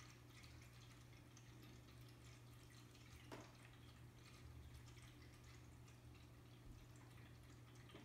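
Near silence: a faint steady hum with faint dripping and trickling, typical of a pet water fountain's pump and water flow.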